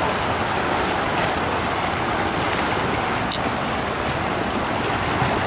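Whitewater rushing steadily down a concrete artificial slalom channel.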